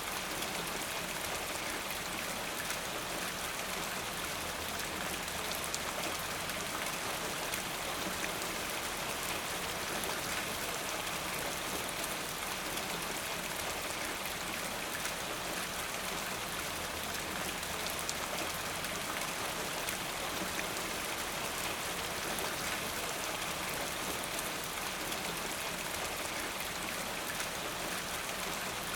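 Steady rain falling, with many individual drops pattering on a surface; the sound stays even throughout.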